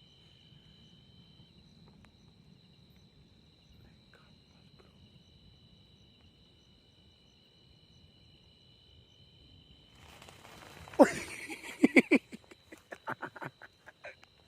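Crickets or other night insects trilling as two steady high tones. About ten seconds in, a run of loud, sharp rustles and knocks starts close to the microphone.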